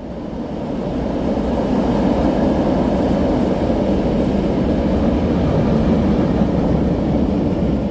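Steady rumble of a vehicle crossing the bridge overhead, building up over the first two seconds and then holding.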